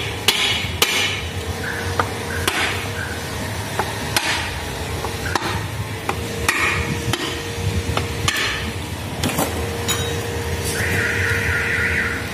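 Hammer or mallet knocks on the aluminium housing of a Volkswagen Polo 5-speed manual gearbox, about nine irregularly spaced strikes, each with a short metallic ring.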